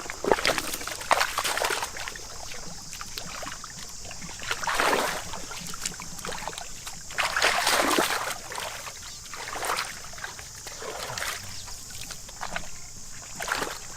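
Shallow water sloshing and splashing in irregular surges as someone wades and gropes by hand in a flooded field, with scattered small knocks.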